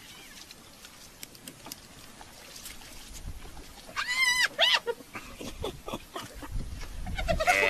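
Animal calls: two short, wavering, high-pitched calls about four seconds in, then a low rumble, and near the end a loud, drawn-out call that falls in pitch.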